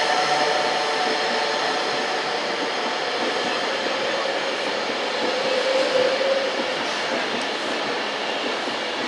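A train running past with a steady rail noise. A pitched whine fades away in the first second, and a brief tone rises about six seconds in.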